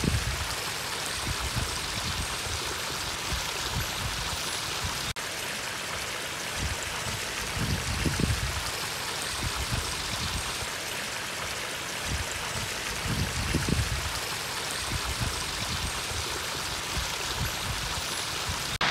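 Water spilling over small rock waterfall drops of a backyard pond, a steady continuous rushing and splashing. There is a momentary break about five seconds in, and a few soft low rumbles under the water noise.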